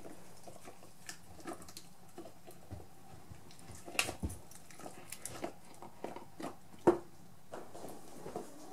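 A greyhound biting, pawing and knocking a cling-film tube with biscuits inside: scattered taps, knocks and crinkles, the loudest about four and seven seconds in.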